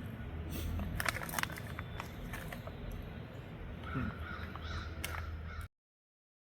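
A bird calls harshly about four seconds in, over a low steady rumble, with a few sharp clicks in the first half. All sound cuts off abruptly shortly before the end.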